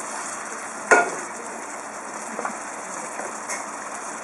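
Caramel syrup sizzling and bubbling in a frying pan around whole cored apples, steady throughout, while a wooden spoon bastes them. A single sharp knock of the spoon against the pan about a second in.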